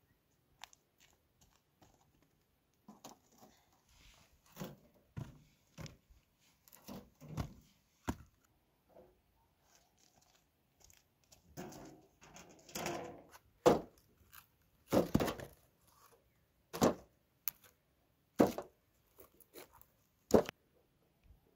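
Dried dung cakes being picked up and set down onto a pile: dull thunks with scraping and rustling between them. The thunks grow louder in the second half, with about five sharp knocks a second and a half or two apart.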